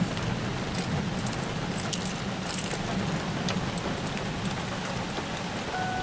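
Rain heard from inside a car: scattered drops ticking on the roof and glass over a steady low rumble.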